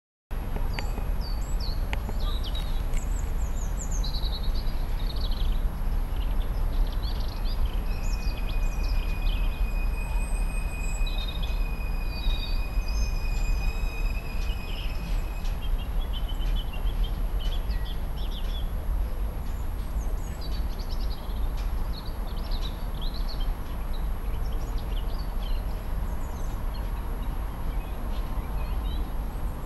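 Freight train of open box wagons rolling away along the track: a steady low rumble, with birds chirping over it.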